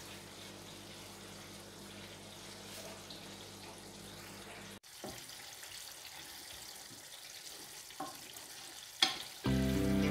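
Grated carrots frying gently in olive oil in a pan on low heat: a steady, quiet sizzle as a wooden spoon stirs them, with a few light knocks of the spoon. Background music comes in near the end.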